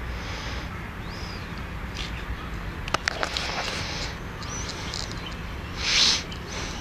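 A plastic bag rustles loudly and briefly near the end as it is handled. Under it run a steady low background rumble, a couple of short bird chirps, and a few sharp handling clicks about three seconds in.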